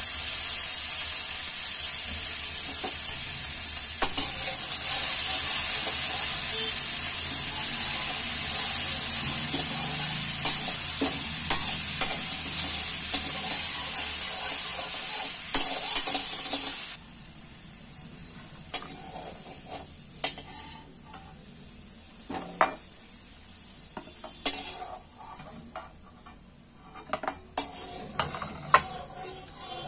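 Pieces of mutton fat frying in a hot kadai with a steady loud sizzle, while a spatula clinks and scrapes as it stirs them with potato pieces. A bit over halfway through the sizzle cuts off suddenly, leaving quieter scattered taps and scrapes of the spatula against the pan.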